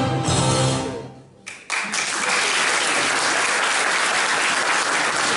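Music ends about a second in, and after a brief lull an audience breaks into steady applause.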